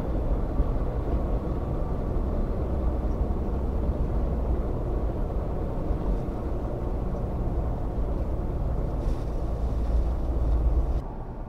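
A car driving, with a steady low rumble of engine and road noise; it cuts off suddenly near the end.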